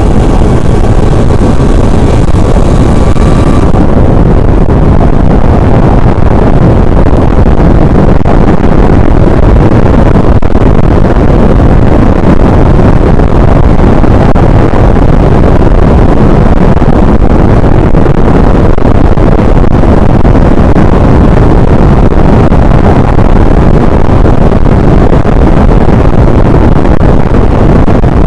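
Violent tornado-core wind blasting the microphone: a very loud, unbroken rush and rumble, heaviest in the low end.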